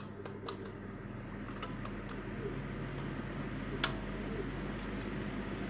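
Clicks and taps of an opened electric hand mixer's plastic housing and gear assembly being handled, with one sharp click about four seconds in, over a steady low electric hum.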